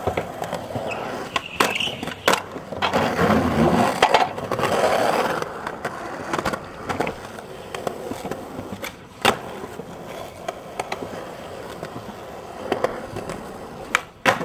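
Skateboard wheels rolling over concrete pavement, with sharp clacks every so often as the board is popped and lands.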